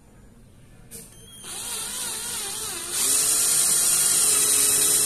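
Cordless drill starting about a second and a half in, its motor whine wavering in pitch, then running louder and steady from about three seconds in as the twist bit bores a screw pilot hole into a wooden block.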